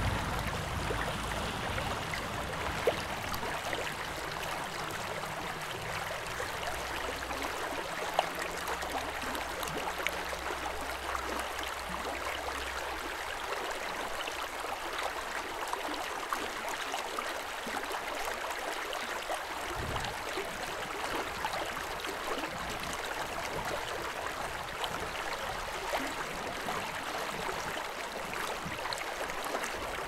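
Steady rushing of flowing water. A low hum underneath fades away about halfway through.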